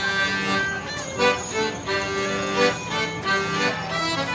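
A traditional Morris dance tune played on two fiddles and an accordion, the fiddles bowing a steady melody over the accordion's chords.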